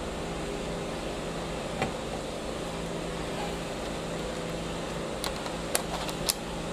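Plastic clicks from a laptop battery pack being handled and slid into its bay: one click about two seconds in, then three sharp clicks in quick succession near the end as it seats. A steady hum runs underneath.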